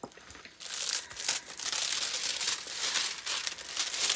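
Thin clear plastic cover film on a diamond painting canvas crinkling as hands smooth and lift it. The crinkling starts about half a second in.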